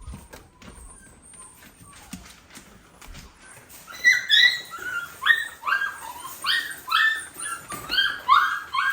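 Golden retriever puppies whining and yipping: a quick run of short, high cries that drop in pitch, several puppies overlapping, starting about four seconds in after faint rustling and clicks.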